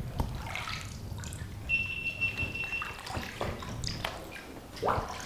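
Water lapping and dripping under a rock overhang, with irregular small splashes and drips that echo. A thin, steady high whistle lasts about a second, starting a little under two seconds in, and a louder splash comes near the end.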